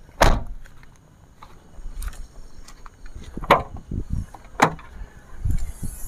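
Minivan doors and tailgate being opened and shut: a loud clunk just after the start, a lighter one about two seconds in, then two more loud clunks about a second apart, with low thuds near the end as the tailgate goes up.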